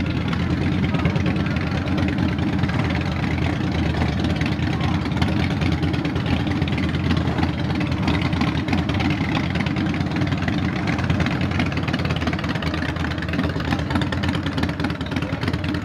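Honda inline-four motorcycle engine idling steadily.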